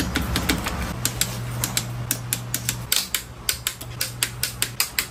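Ratchet head of a click-type torque wrench clicking rapidly and evenly, about five or six clicks a second, as it is swung back and forth tightening the motorcycle's front-end bolts to torque specification.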